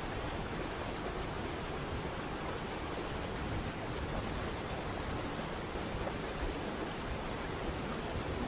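Waterfall rushing steadily, with a thin high-pitched trill running on over it.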